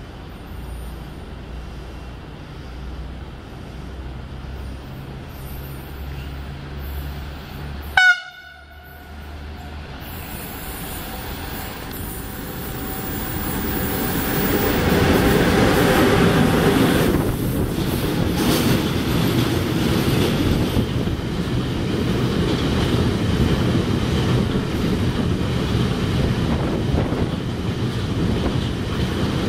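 A short, loud horn blast from a Siemens Vectron electric locomotive about eight seconds in. Then the locomotive and its long string of covered freight wagons roll through the station, the train noise building as it comes close and staying loud as the wagons pass.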